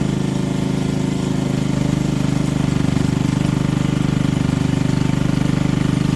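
An engine running steadily at constant speed, a low hum with a fast, even pulse.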